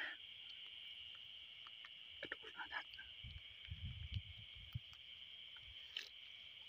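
Steady high chirring of night insects in grass, with a few faint rustles and soft low bumps a few seconds in.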